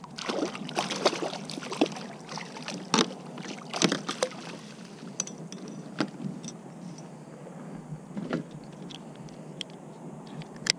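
Irregular knocks, taps and rattles of a small speckled trout being landed in a plastic fishing kayak: the landing net and gear bumping the hull as the fish is netted, with a sharp click near the end as a lip gripper clamps onto it.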